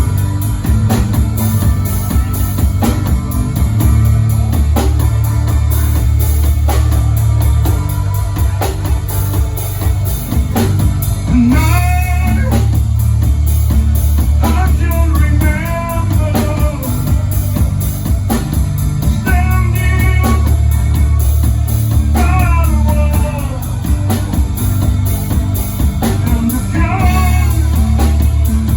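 A rock band playing live: guitar and drum kit over a heavy bass. A voice starts singing about twelve seconds in, in phrases with short gaps between them.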